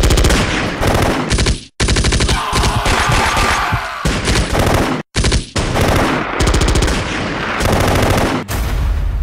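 Automatic machine-gun fire: long rapid bursts that stop briefly twice, about two seconds in and again about five seconds in.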